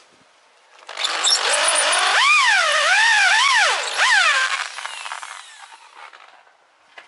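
Electric drill spinning a hole saw to cut down an outboard motor's water tube, a noisy cutting sound with the drill motor's whine rising and falling in pitch several times. It starts about a second in and runs for about five seconds before winding down.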